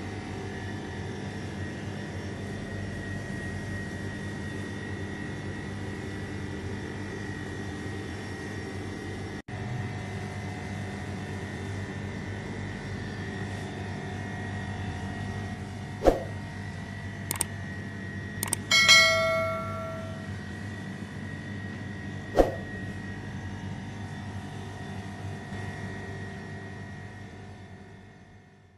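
A steady mechanical hum with a few fixed tones, broken by a sharp knock about 16 seconds in, a brief ringing clink of a struck object a few seconds later, and another knock about 22 seconds in. The hum fades out at the end.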